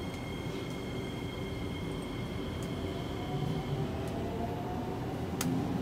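Metro train standing at a platform with its doors open: a steady hum from its idling equipment, with a high whine that stops about four seconds in. A train on the opposite track starts off, its motor whine rising in pitch, and there is a sharp click near the end.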